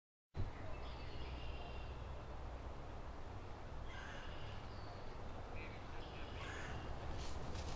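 Birds calling outdoors: about four short, harsh calls spread through, over a steady low rumble on the microphone.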